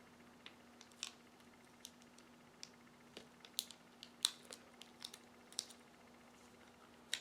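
Hands pressing adhesive tape over 9-volt batteries: about fifteen small, irregular clicks and crinkles, the sharpest about four seconds in and near the end, over a faint steady hum.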